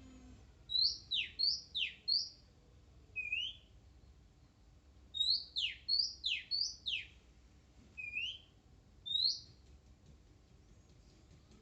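Oriental magpie-robin (kacer) singing: clear whistled notes, some short upward slurs and some steep downward sweeps, given in quick clusters of four or five notes about a second in and again about five seconds in, with single notes in between.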